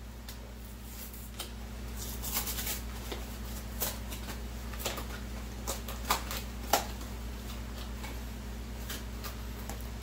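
Scattered small clicks and rustles of kitchen items being handled at the stovetop, over a steady low hum.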